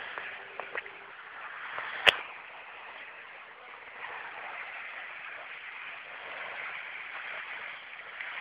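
Steady outdoor hiss with one sharp, loud click about two seconds in and a few fainter ticks just before a second in.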